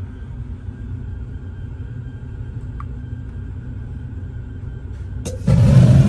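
Gas furnace's main burner lighting off the pilot: a low steady hum, then near the end a click and a sudden loud rush of flame with a deep rumble as the burner catches.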